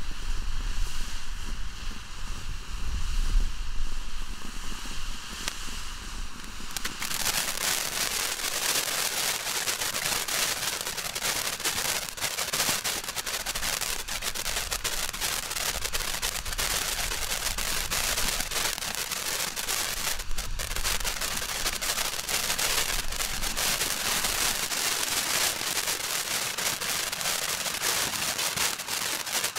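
Red Rhino 'Nuts Please!' fountain firework spraying sparks with a steady hiss. About seven seconds in it changes to dense, fast crackling that carries on steadily.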